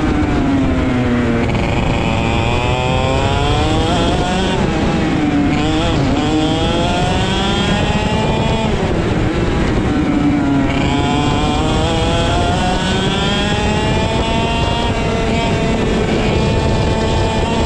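IAME X30 125cc two-stroke kart engine running hard on track, its pitch dropping as the kart brakes for corners about a second in, again around five seconds and around nine seconds, then climbing steadily as it drives out of each. Wind rushes over the onboard microphone throughout.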